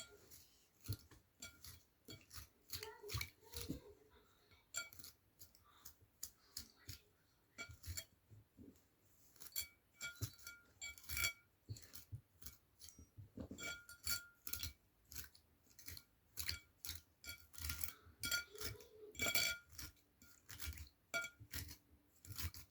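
A comb worked through a doll's wet hair in a bowl of water, giving many light, irregular clicks and clinks against the bowl, some with a short ring.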